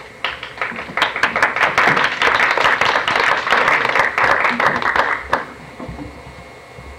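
Audience applauding, a dense patter of many hands clapping that starts just after the lights go down and dies away about five seconds in.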